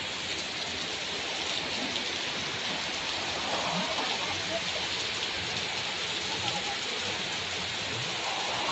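Heavy rain pouring onto a street and pavement: a dense, steady hiss.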